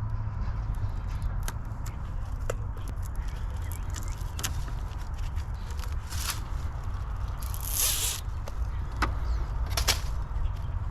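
Scattered clicks and scrapes of hands working with hardware, over a steady low rumble, with a short hiss about eight seconds in.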